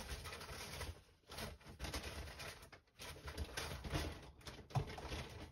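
Small cellophane packets of nail charms rustling and being handled in a search, with irregular crinkles and light knocks.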